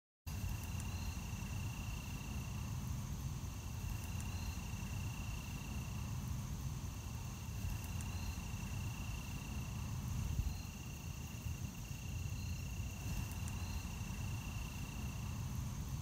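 Outdoor insect chorus, crickets trilling in a steady high-pitched tone, with short faint chirps every few seconds over a constant low rumble.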